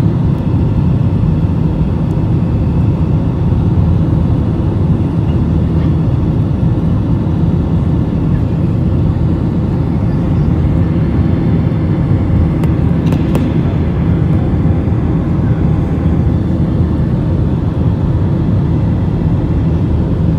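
Steady deep roar of an airliner's jet engines and rushing air, heard inside the passenger cabin during the climb after takeoff, with faint steady whining tones over it.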